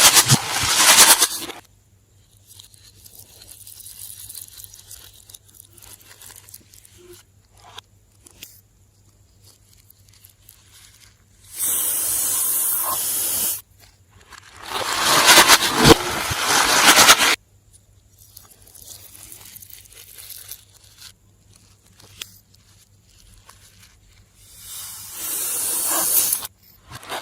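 Slime being squeezed and worked by hand, heard as squelching crackles and hisses. Four loud hissing, crackling bursts, about two to three seconds each, stand out, with quieter crackling and squishing in between.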